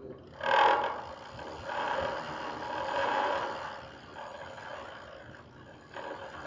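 Purported 'sound of hell' recording, said to come from microphones lowered into a deep drilled borehole: an eerie, drawn-out noise that swells and fades several times, loudest about half a second in.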